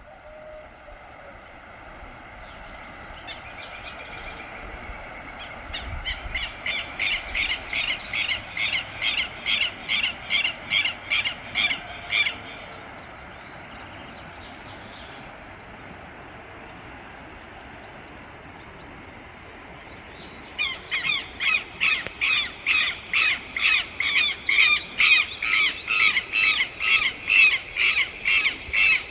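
Southern lapwings (quero-queros) calling in two long runs of harsh, rapidly repeated notes, about three a second: the first lasting some six seconds, the second starting about twenty seconds in and louder.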